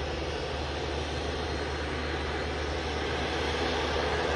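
A propeller airliner's engines running steadily on the runway, with a constant low hum under a wide rushing noise. The sound grows slightly louder near the end.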